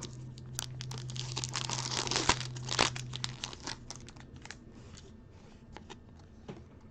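Plastic wrapping of a trading-card box and its packs crinkling and tearing as they are opened. It is densest over the first three seconds, then thins to a few light rustles and clicks.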